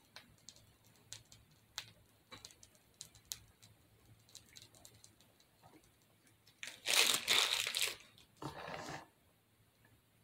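Handling noise from piping spackle with a plastic piping bag: faint scattered clicks and crinkles. About seven seconds in comes a louder rustling, scraping burst lasting over a second, then a shorter one, as the cake is turned on its stand.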